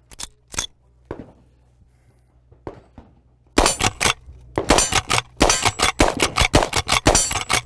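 Winchester Model 1866 lever-action rifle in .38 Special fired in quick succession, starting about three and a half seconds in, with shots and the clack of the lever being cycled coming a fraction of a second apart. A couple of sharp mechanical clicks near the start as the rifle is handled.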